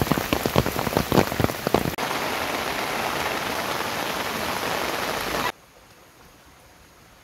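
Rain on a waterproof flysheet stretched over a tent: at first distinct heavy drops pattering on the fabric, then, about two seconds in, a steady dense hiss of rain. About five and a half seconds in it cuts off to a faint background.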